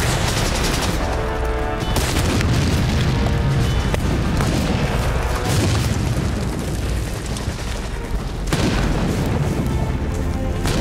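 Battle sound effects of explosions going off, with deep rumbling throughout and a sharp blast about eight and a half seconds in, mixed with film score music.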